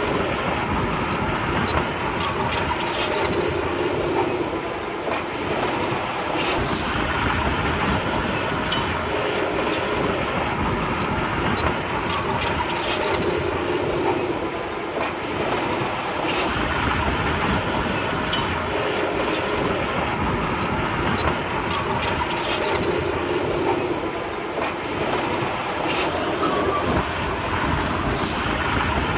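Komatsu D31P crawler bulldozer's diesel engine running steadily under work, with scattered clanks from its tracks; the sound eases briefly about every ten seconds.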